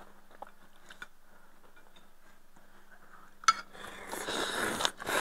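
Chopsticks and spoons clinking lightly against ceramic bowls, then about three and a half seconds in a sharp clink followed by about a second of noodles being slurped.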